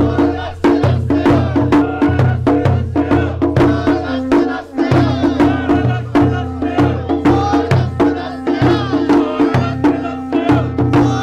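Japanese festival music led by drums: a steady quick beat of sharp wooden knocks over low drum strokes, with voices.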